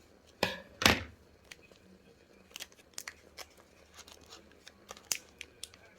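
Trading-card pack being handled: two short tearing rips about half a second and a second in, the loudest sounds, then light scattered clicks and rustles of cards and wrapper.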